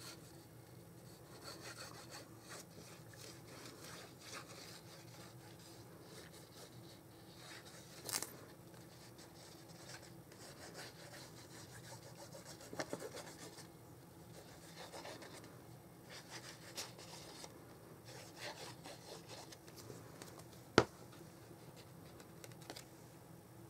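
Faint rubbing and rustling of paper and cardstock being handled and pressed down by hand as a sheet of patterned paper is stuck on, with a few small knocks and one sharp click near the end.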